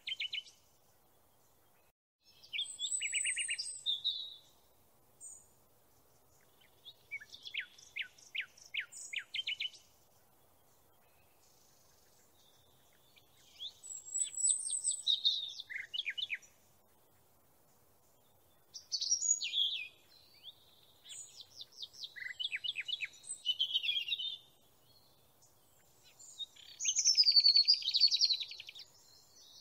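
A songbird singing about seven short phrases of rapid, high, downward-sweeping notes and trills, each one to three seconds long, with pauses between them.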